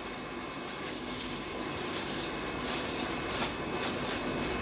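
Aluminium foil crinkling and rustling as gloved hands fold and wrap it, with a few sharper crackles standing out over a steady background hum.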